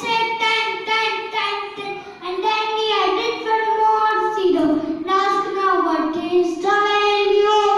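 A young boy's high voice in a sing-song chant, held pitched phrases with short breaks between them.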